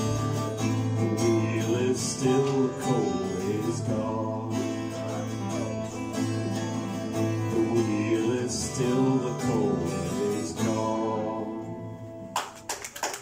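Acoustic guitar strummed through the closing bars of a folk song, fading out about twelve seconds in; clapping starts just after.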